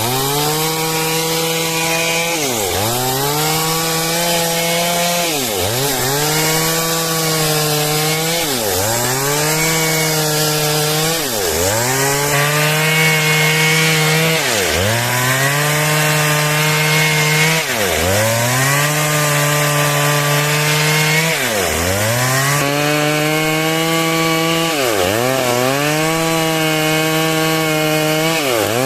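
Stihl MS 382 two-stroke chainsaw running at high revs while cutting wood lengthwise. Its engine pitch dips briefly about every three seconds and climbs back.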